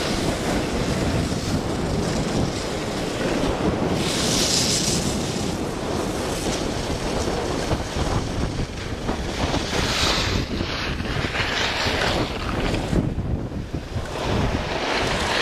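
Wind buffeting the microphone: a steady, loud rumbling rush with brief hissing surges a few times.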